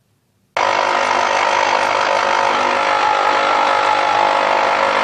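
Electric juicer's motor running steadily while oranges are juiced, switching on suddenly about half a second in.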